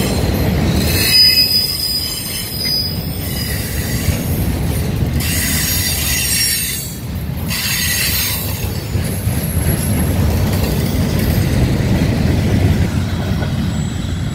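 Freight train boxcars rolling past on steel wheels with a steady low rumble. A high-pitched metallic squeal from the wheels rises over it twice, about a second in and again around five to eight seconds in.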